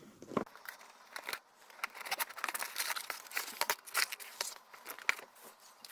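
Toy packaging being opened by hand: irregular crinkling, rustling and tearing of packaging material.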